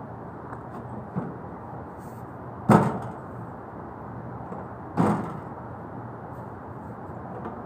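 Two loud knocks on the sheet-metal casing of an air-conditioner outdoor unit, about two seconds apart, each ringing briefly, with fainter taps before and after, over a steady background rush.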